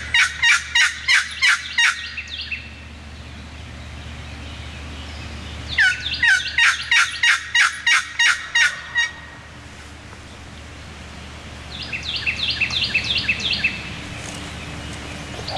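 Turkey call working hen-turkey yelps: runs of sharp, evenly spaced notes at about three a second, a loud run at the start and another about six seconds in, then a softer, quicker run near the end.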